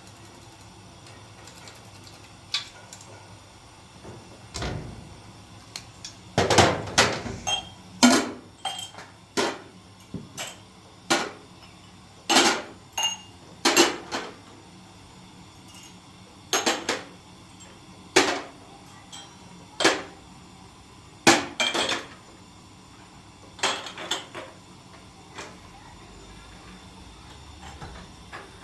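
Irregular clinks and knocks of hard objects being handled and set down, about twenty of them, some in quick pairs, loudest in the middle.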